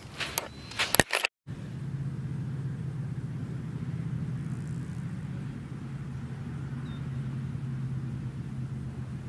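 Footsteps crunching on sand for about a second, cut off abruptly. Then a steady low drone with an even level, like a distant engine.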